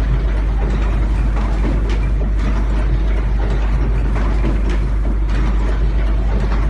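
Fully automatic crimping machine for 16A plug inserts running, its mechanisms clattering with repeated sharp clicks over a steady deep hum.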